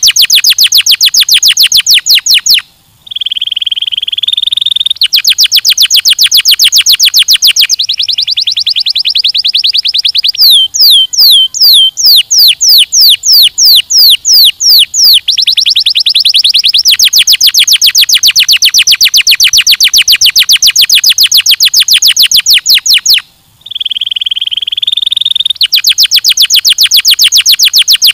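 Canary singing: long trills of fast repeated high notes, broken by two brief pauses. Near the middle comes a slower run of about a dozen sharply falling whistled notes.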